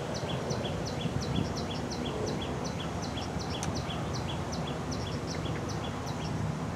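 Outdoor pond-side ambience: a small animal repeating short high chirps, about three a second, over a steady low rumble of background noise.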